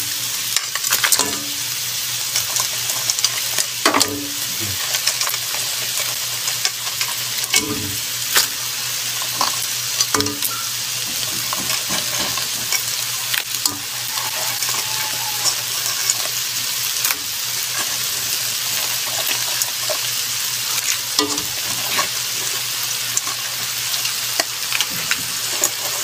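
A wok of crabs and mixed seafood sizzling steadily over the heat. Now and then there is a knock or clatter as handfuls of cooked crab and shellfish are dropped in.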